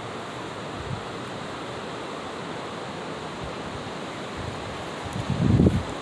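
Wind on the microphone: a steady rushing hiss, with loud, low buffeting gusts near the end.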